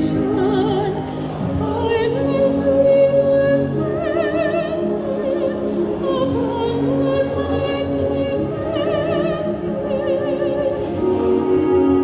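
Female opera singer singing a classical aria with wide vibrato over orchestral backing music.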